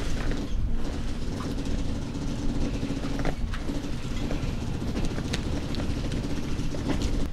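Electric power winch running steadily as it hoists a dinghy onto a boat's deck, a constant motor hum with scattered clicks and knocks.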